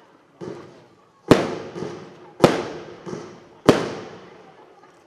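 Consumer firework battery firing shell after shell: three loud bangs about a second and a quarter apart, each echoing away, with fainter pops in between.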